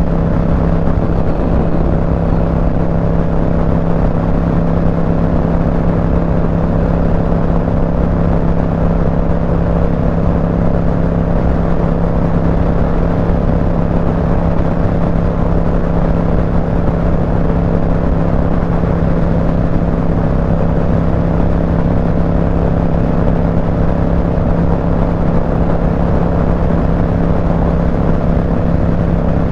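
Motorcycle engine running at a steady highway cruise, an unchanging drone with a rush of wind and road noise underneath.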